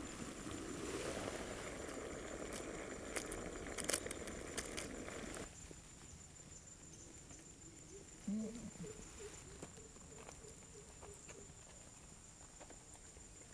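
Faint steady hiss with a few sharp metal clicks, as of a ladle knocking in a large steaming cooking pot; it cuts off abruptly about five seconds in. Afterwards there is faint outdoor quiet, with a brief soft sound as curry is ladled onto appam.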